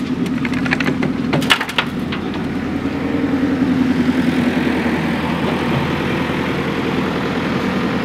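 Engine of construction machinery running steadily, with a quick run of cracks and knocks in the first two seconds.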